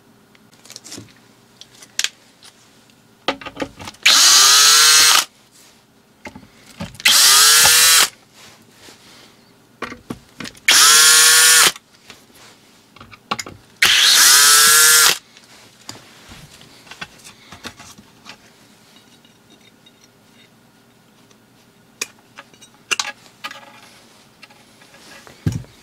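Cordless power drill-driver run four times, about a second each, its motor whining up in pitch at each start: backing out the four screws that hold a speaker driver in its wooden cabinet. Light clicks and knocks from handling the parts come in between and near the end.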